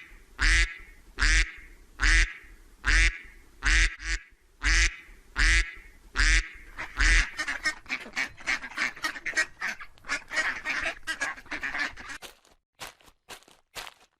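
Duck quacking: a string of loud single quacks, a little under one a second, then a faster run of softer quacks. A few short clicks near the end.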